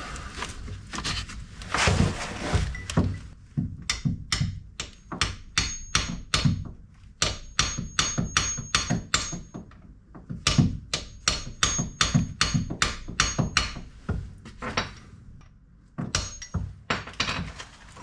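Hammer driving a part in with a punch: rapid, even blows, about three a second, each with a faint high ring. The blows pause for about two seconds near the end, then start again.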